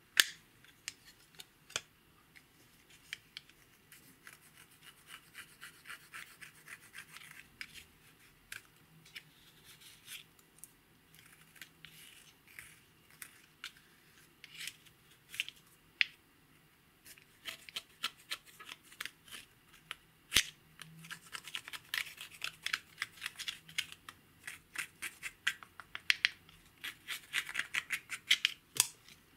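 A plastic spatula scraping and crumbling pressed eyeshadow out of its compact pan: a long run of small dry scratches and clicks, sparse at first and dense through the second half. A single sharp click from the plastic compact comes at the very start and is the loudest sound.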